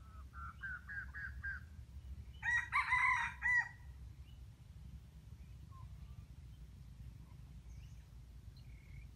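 Red junglefowl rooster crowing once, loudly, about two and a half seconds in, the crow lasting a little over a second, after a quick run of about six short rising call notes.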